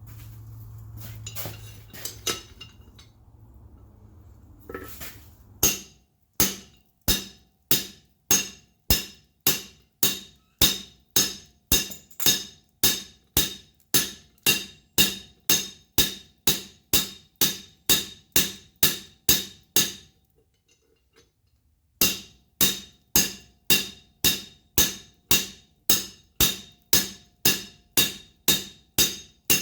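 Hand hammer blows on hot wrought iron on an anvil, struck at a steady pace of about one and a half a second, each with a short metallic ring. The blows pause for about two seconds near two-thirds of the way through, then resume. Before the hammering starts, a low hum runs under a few scattered knocks.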